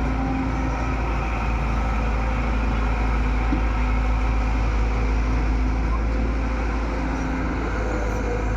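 Excavator's diesel engine running steadily, with a constant low rumble.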